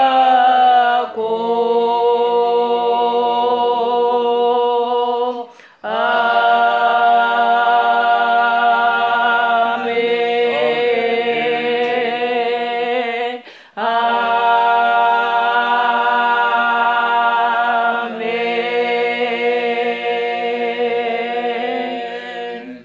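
Unaccompanied voices singing a slow church hymn in long held notes, with short breaks between phrases about six and fourteen seconds in.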